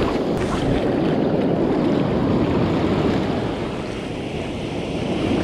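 Surf rushing and foaming as waves wash in, with wind on the microphone, a steady dense rushing that eases slightly near the end.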